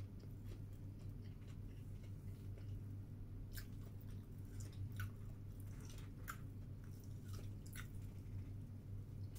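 A person chewing food close to the microphone, with scattered small crisp crunches and mouth clicks at irregular moments, over a steady low hum.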